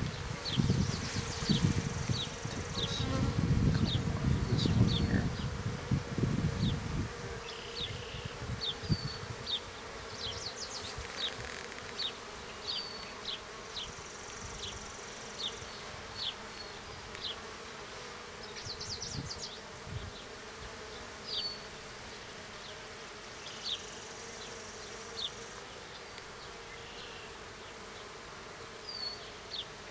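Honeybees buzzing steadily around an open hive. A low rumble is loudest for the first seven seconds, and short high chirps recur every second or so.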